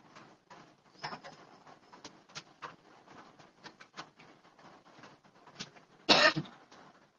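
Scattered small clicks and rustles of handling, with one short, loud cough about six seconds in.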